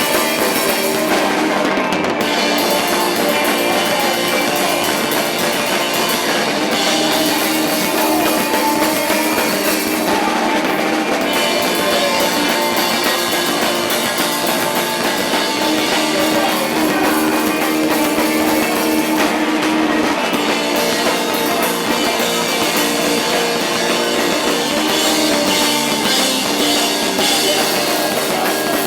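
Rock music played by a band with drum kit and guitar, steady and loud, with almost no bass.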